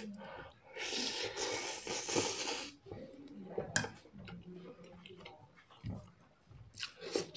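A person slurping a forkful of noodles in one long slurp starting about a second in, followed by chewing and short mouth clicks and smacks.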